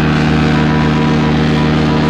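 Steady machine-like drone: a hum of several held tones over a rumble, unchanging throughout.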